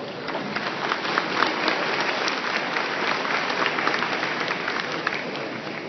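Crowd applauding, dense steady clapping that fades near the end.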